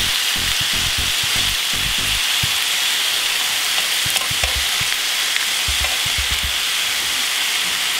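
Beef patties and freshly added raw bacon strips sizzling steadily in a hot ridged grill pan, with a few light clicks about four seconds in.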